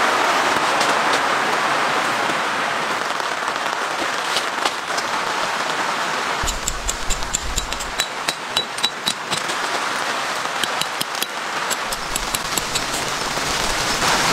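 A tent stake is hammered into gravel: runs of sharp, ringing metallic strikes, about four a second, starting about halfway through with more near the end. Steady rain falls throughout.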